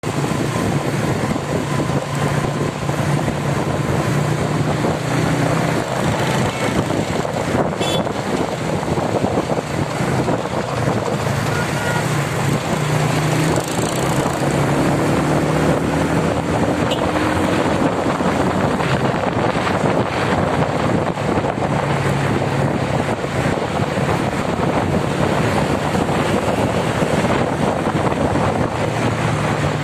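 Steady road noise and wind rushing over the microphone from a vehicle driving in highway traffic, with a low engine hum that comes and goes.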